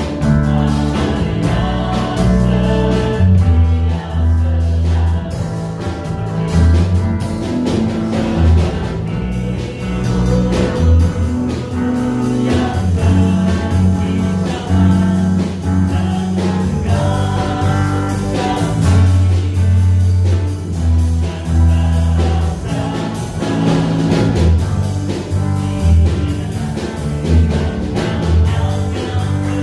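A praise and worship song performed live: a young singer sings, accompanied by a strummed acoustic guitar and an electric bass guitar.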